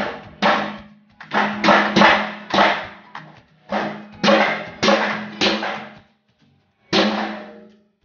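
New drum spider (Y hub) being knocked down onto the back of a stainless-steel washing-machine drum to seat it: about eleven sharp blows in uneven groups, each leaving the hollow steel drum ringing briefly.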